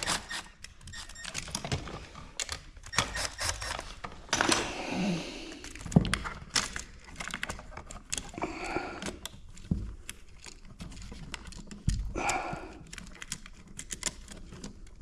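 Close-up handling of an electrical outlet, its wires and a hand tool such as a screwdriver: irregular clicks, taps and small rattles, with a few sharper knocks.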